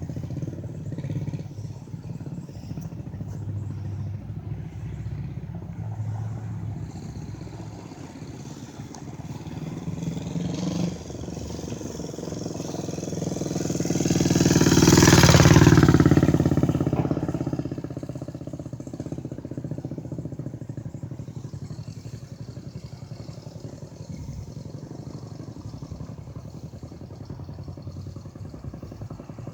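Steady low rumble of traffic or engines, with one vehicle passing: it grows louder to a peak about halfway through, then fades away.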